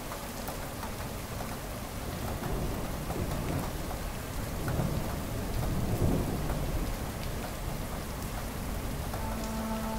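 Steady rain falling, with fine drop ticks and a low roll of thunder that swells and fades around the middle. Sustained music notes come in near the end.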